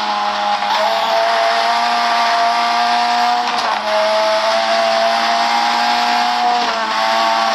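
Car engine running at high, steady revs, its pitch breaking and shifting three times, about every three seconds, as in gear changes.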